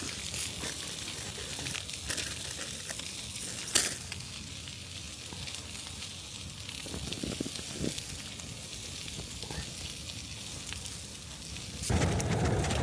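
Sausages sizzling as they fry in a small pan on a camping gas stove, a steady high hiss with scattered small pops and one sharp click about four seconds in. Near the end a louder, lower rushing noise comes in.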